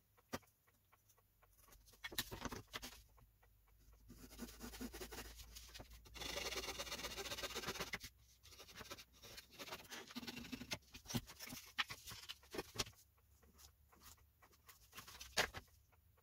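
A sanding block rubbed back and forth along a balsa wood strip for a few seconds in the middle, with scattered light clicks and taps of a craft knife and tools on a cutting mat before and after.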